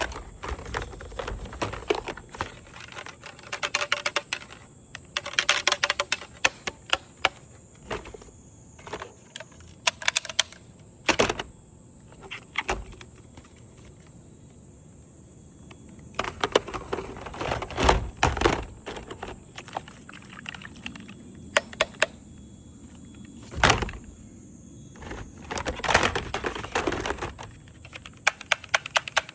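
Plastic toy blaster clicking and snapping as it is worked and tested: bursts of rapid clicks and a few single sharp snaps, with a quieter stretch in the middle.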